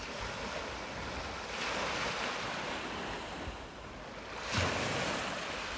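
Small waves breaking and washing up a sandy, pebbly shore: a steady rush of surf that swells twice, the second time rising sharply about four and a half seconds in.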